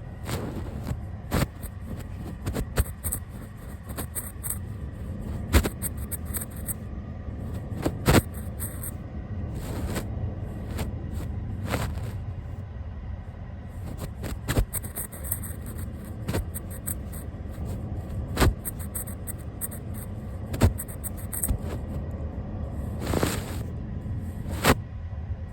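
A brush sweeping over a camera and its microphone at close range: a scratchy rustle over a low rumble, broken by irregular taps and short bursts of high hiss.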